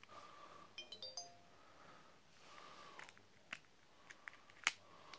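A flip phone plays a quick rising run of short electronic beeps, then plastic handling clicks follow and the phone's hinge snaps sharply near the end.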